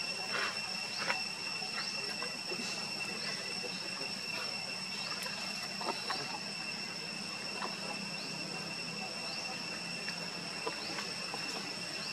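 Steady high-pitched insect drone, with many faint short rising chirps and a few soft clicks and rustles.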